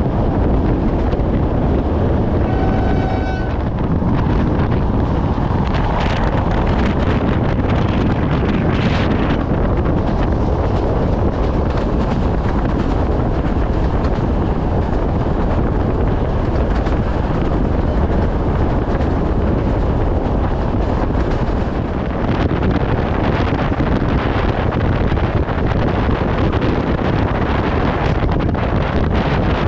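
Steady rumble of a moving train, heavily buffeted by wind on the microphone. A brief pitched tone sounds about three seconds in.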